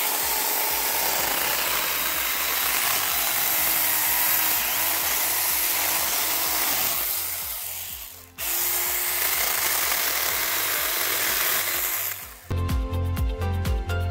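Battery-powered Saker mini chainsaw cutting through wood, running steadily, stopping briefly about eight seconds in, then cutting again. Near the end it gives way to background music with a steady beat.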